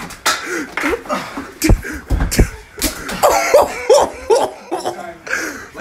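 A fistfight scuffle: a run of sharp thuds from blows and bodies colliding, mixed with short grunts and exclamations, thickest in the middle.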